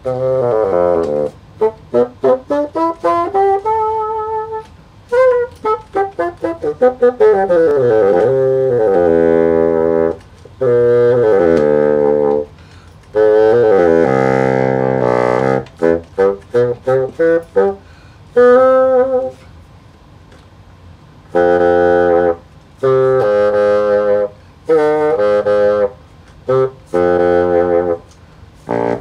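Solo bassoon playing a melody: runs of short detached notes alternate with longer held notes, and there are brief pauses between phrases.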